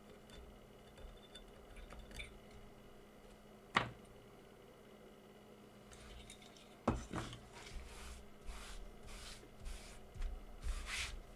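Hand work with small tools on a bench: two sharp knocks about three seconds apart, then a run of short scraping strokes, roughly two a second, through the second half.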